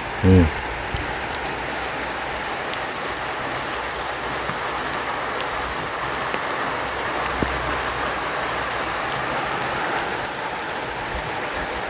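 Steady rain falling: an even hiss with scattered ticks of drops. A brief voice sounds about half a second in.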